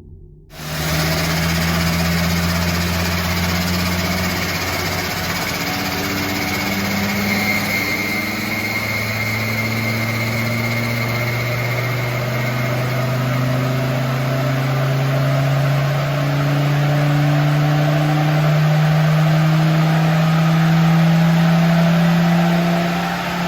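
Land Rover Defender Td5 five-cylinder turbodiesel running under load, its engine speed rising slowly and steadily, with a higher whistle from the turbo partway through. It carries compressor surge from an oversized prototype VNT turbo that pushes more air than the engine can take at low to mid engine speeds.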